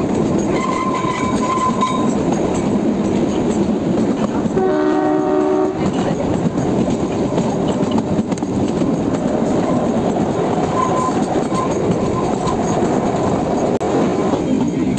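Kalka–Shimla narrow-gauge toy train running, its wheels clattering steadily over the rail joints, heard from the open coach window. About four and a half seconds in, the train's horn sounds once for about a second.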